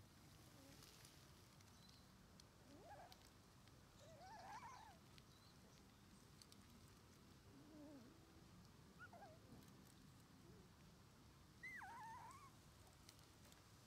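Three-week-old Shiba Inu puppy whimpering faintly: a handful of short, high whines that slide up and down in pitch, with quiet gaps between them.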